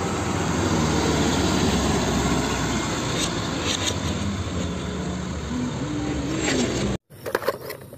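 Diesel engine of a Hino fuel tanker truck running as it drives along a road, with steady road and traffic rumble. The sound cuts off abruptly about seven seconds in.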